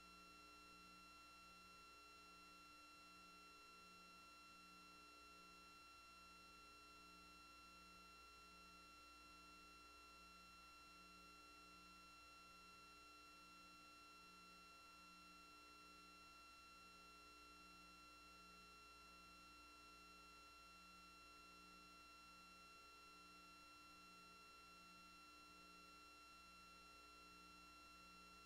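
Near silence: faint steady electronic tones and hum, with a low tone pulsing on and off a little more than once a second.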